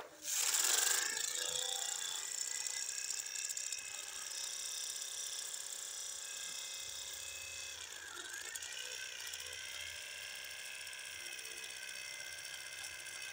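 Small electric motor and plastic gearbox of a wired toy tractor whining steadily as it drives through sand under load, starting abruptly; the pitch sags briefly about eight seconds in, then recovers.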